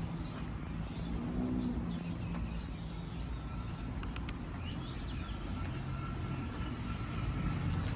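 Outdoor background noise: a low steady rumble, with a faint thin steady tone joining about three seconds in.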